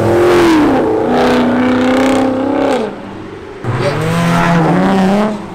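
A widebody Dodge Challenger's V8 revving hard as the car pulls out and goes by, its pitch falling twice. After a short lull, a Honda Civic's smaller engine revs up, rising in pitch, as it pulls away.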